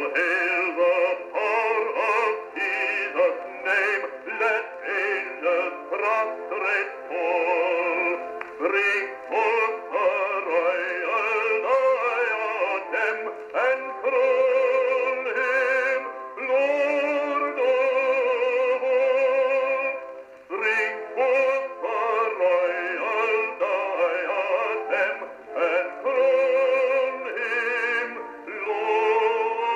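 A man's voice singing a hymn with vibrato, played from a 1908 Albany Indestructible phonograph cylinder. It has the thin sound of an early acoustic recording, with no bass and little treble.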